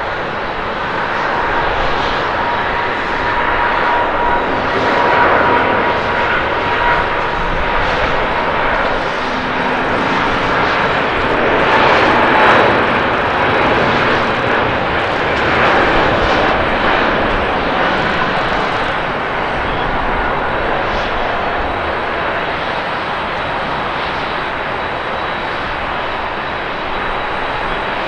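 Airbus A350-900's Rolls-Royce Trent XWB turbofans at takeoff thrust, a steady roar through the takeoff roll with a high whine over it in the first several seconds. It is loudest around lift-off, a little under halfway through, and eases as the jet climbs away.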